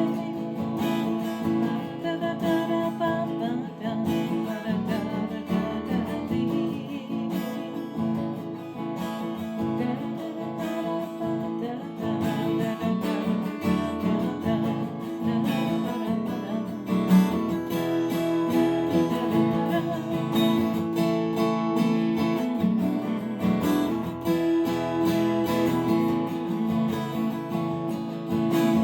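Acoustic guitar with a partial capo on the 2nd fret strummed steadily through an instrumental break, cycling through G, A minor, C and D chord shapes.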